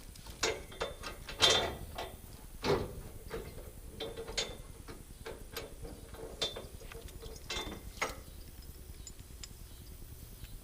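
Ratchet-type chain load binder being worked by hand to tighten a log chain: irregular metallic clanks and clicks of the pawl and handle with chain links rattling, which stop about eight seconds in.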